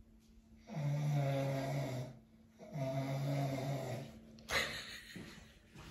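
Insanely loud snoring from a sleeper: two long pitched snores, each about a second and a half, with a short pause between, and a brief snort just after.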